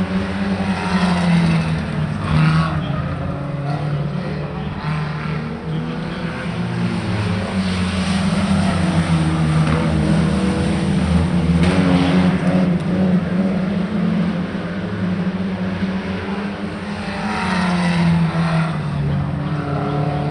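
Competition car's engine running hard as it is driven, its note rising and falling with the changing revs.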